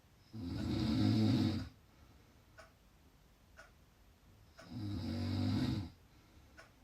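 A person snoring loudly: two long snores of about a second and a half each, some four seconds apart. A faint tick sounds about once a second in the quiet between them.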